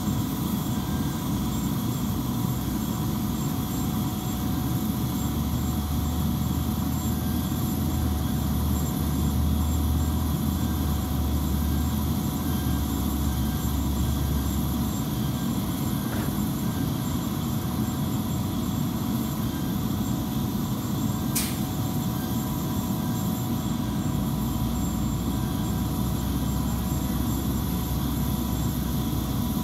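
Steady machinery noise of airport ramp equipment: a low engine hum with faint steady whining tones over it, and one short sharp click about two-thirds of the way through.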